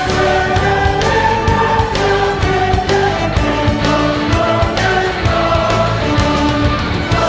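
Music with singing: voices holding long notes that change pitch every half second or so, over a steady beat.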